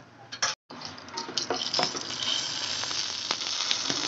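Mustard seeds, cumin, chana dal and urad dal sizzling in hot oil in a kadai, a tempering (tadka) for the masala, with scattered sharp pops. The sound cuts out briefly about half a second in, then the sizzle returns steadier.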